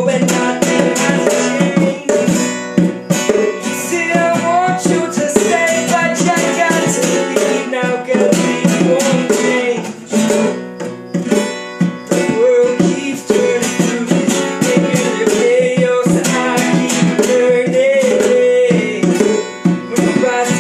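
Live acoustic and electric guitars playing together, strummed chords under a wavering melody line, with regular sharp strokes keeping a beat.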